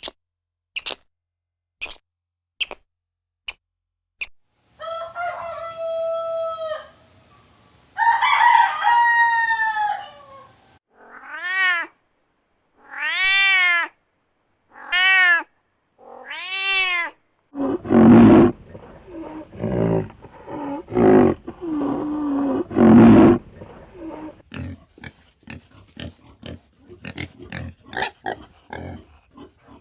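A sequence of different animal calls: short sharp chirps, then long pitched calls, then four calls that rise and fall in pitch, then a run of loud, low grunting calls, ending with rapid clicks.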